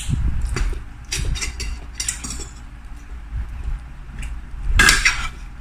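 A person eating chicken with their hands: chewing and wet mouth noises with many small clicks, and a louder clattering noise a little before the end.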